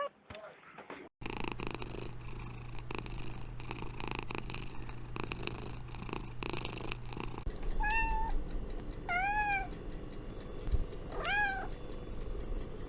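A cat purring steadily, starting about a second in, then after a cut a kitten giving three short, high mews.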